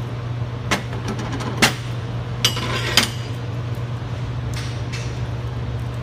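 Thin steel shims and steel discs clinking and knocking against each other and the metal workbench as they are picked up and set in place. There are a few sharp clicks, the loudest about a second and a half in, and a short jingling clatter around the middle, over a steady low hum.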